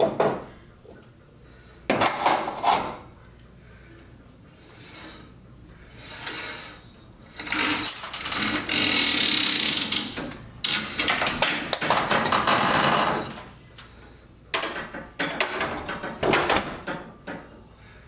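Metal clanking and scraping as parts are worked and slid off a garage door's steel torsion shaft: short bursts near the start, a longer stretch of scraping through the middle, then a run of knocks near the end.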